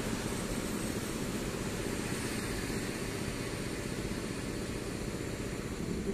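A Polregio electric multiple unit running into the station on the far track: a steady rumble and hiss of wheels and running gear.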